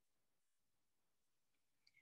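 Near silence: dead air with no audible sound.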